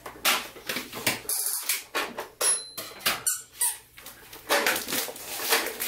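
Wooden peg puzzle piece knocking and scraping against its wooden board and the plastic high-chair tray in a string of short clacks, with a brief high squeak about two and a half seconds in.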